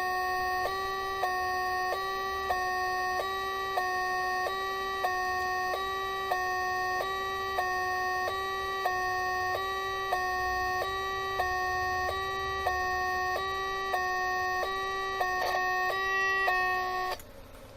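Homemade electronic French two-tone siren heard through a signal tracer's speaker: two twin-T audio oscillators switched in turn by an astable multivibrator, alternating between two pitches about every 0.6 s. Each changeover gives a small click, the switching transient of the oscillators turning on and off. The sound cuts off suddenly about 17 seconds in.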